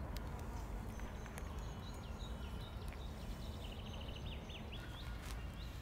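Small birds singing, a string of short high chirps and quick curved notes, over a low steady outdoor rumble, with a few faint clicks.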